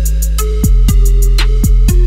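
Background music: an electronic beat with deep, pitch-dropping kick drums and hi-hats over a steady bass line.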